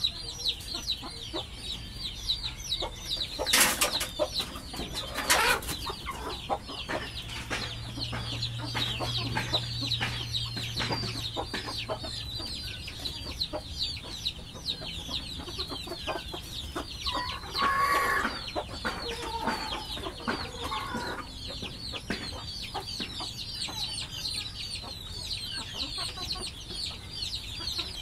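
Chickens clucking, with a short call about 18 seconds in, over a steady high-pitched chirping in the background. Two sharp knocks a few seconds in are the loudest sounds.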